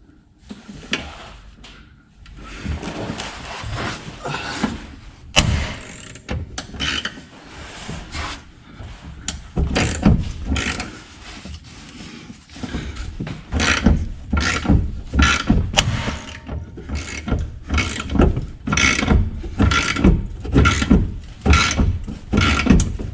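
Hand ratchet wrench clicking in repeated back-and-forth strokes, settling into about two strokes a second in the second half, as it turns the screw of the bushing removal tool.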